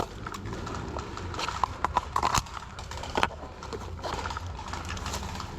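Irregular knocks and clicks over a low rumble, like footsteps on hard ground with gear knocking as an airsoft player moves.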